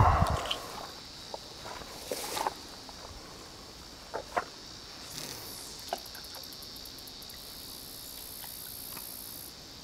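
Crickets trilling steadily in a high, even band, with rustling and knocks from handling through dry weeds and brush. A loud bump opens the stretch, and short rustles follow about two, four and six seconds in.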